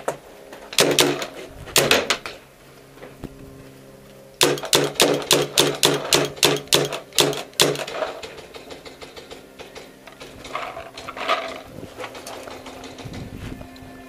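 Paintball marker firing: a few shots about a second and two seconds in, then a quick string of about a dozen shots, roughly four a second, from about four and a half seconds in.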